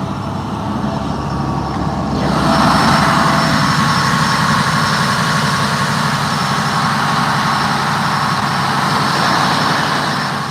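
Fishing boat's diesel engine running steadily in the engine room, joined about two seconds in by a much louder, even rush of machinery noise.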